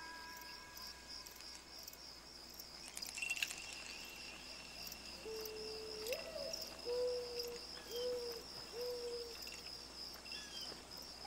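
Insects chirring in a steady, rapidly pulsing drone, with a few short hooting calls about halfway through.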